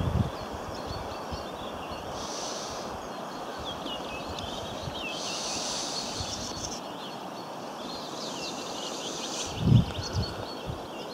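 Small birds chirping and singing over a steady outdoor hiss of wind and countryside background. A single low thump comes near the end.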